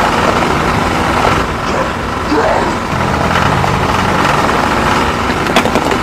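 Small electric motor running steadily with a continuous whine, with a couple of sharp clicks near the end.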